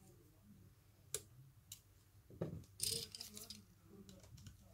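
A few faint clicks and taps of steel tweezers and a small metal shield bracket as an iPhone 6's battery connector is uncovered and unplugged to cut the power, with a brief scraping rustle of gloved hands about three seconds in.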